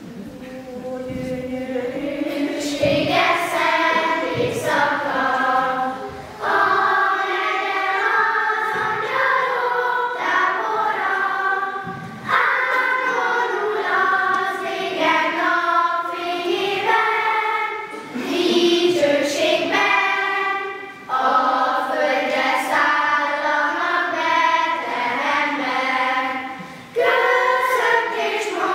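Children's choir singing together, line by line, with short breaks for breath between phrases.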